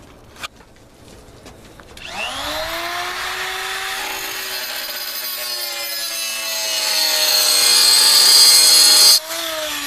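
Handheld electric cutoff tool spinning up about two seconds in and cutting into steel body metal. The motor's pitch slowly sags under the load while a high metal-cutting screech grows louder, then drops off suddenly near the end as the tool runs on.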